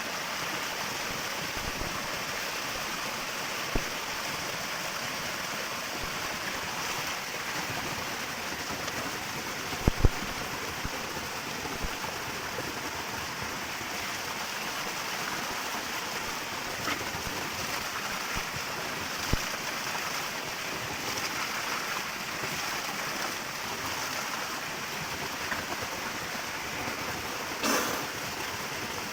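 Water from a small waterfall running steadily, with a few short sharp knocks, the loudest about ten seconds in.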